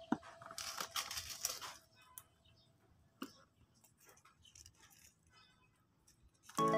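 Small pebbles tipped from a plastic spoon onto the potting mix of a succulent pot as top dressing: a short rattle over the first couple of seconds, then a few faint clicks. Music comes in at the very end.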